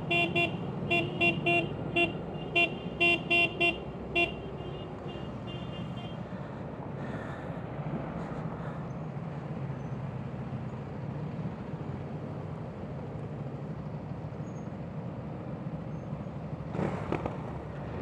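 Motorcycle horn tooted about ten times in short quick blasts over the first four seconds, with a few fainter toots after, then a steady low rumble of a running engine.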